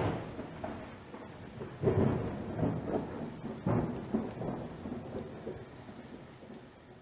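Thunderstorm: steady rain with rolling thunder, which swells about two seconds in and again near four seconds, then fades away.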